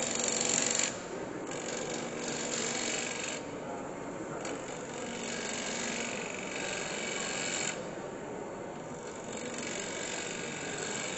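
Gouge cutting a wooden blank spinning on a wood lathe: a hissing scrape of the tool on the wood in three passes, the first short and loudest, then fainter towards the end, over the lathe's steady running.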